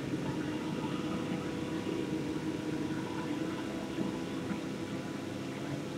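A steady low hum with a hiss over it, holding level throughout, with no voice.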